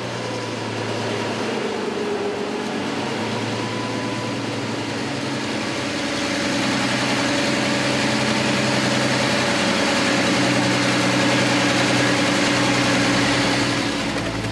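Boat engine running steadily, under a rushing hiss that grows louder about halfway through.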